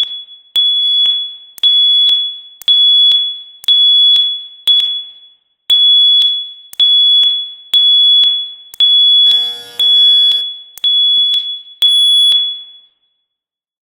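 Fire alarm system sounding a high-pitched alert tone as a sharp beep that fades out, repeating about once a second. A brief noisy sound cuts in about ten seconds in, and the tone stops about 13 seconds in.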